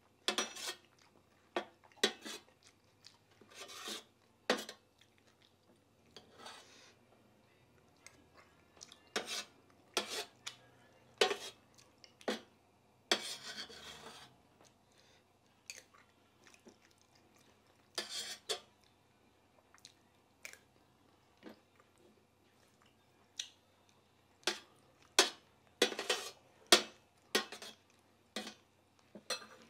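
Steel spoon scraping and clinking against a brass plate as food is scooped up, in irregular short strokes, with chewing between mouthfuls. The strokes come thicker and louder about 25 seconds in.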